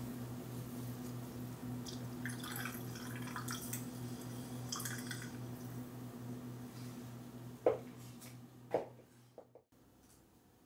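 Water dripping from a soaked cloth into a glass of mint-infused carbonated water: faint scattered ticks, then two louder drips about a second apart near the end. A steady low hum runs underneath.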